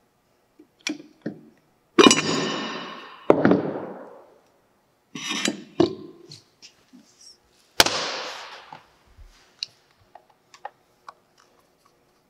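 Metal clanks from an electric motor being taken apart on a workbench, as its end bell comes off the housing: four loud clanks, each ringing out for a second or so, with lighter clinks and taps between and after them.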